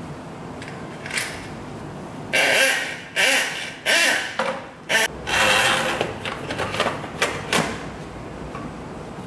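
Flexible steel drain-auger cable scraping and rattling against the plastic drum as it is pulled through the outlet by hand, in several separate pulls, followed by a few sharp clicks and knocks as the drum is handled back into the machine.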